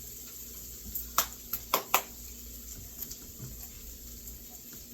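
Four quick, sharp clicks and taps from the stove and cookware between about one and two seconds in, over a faint steady hiss.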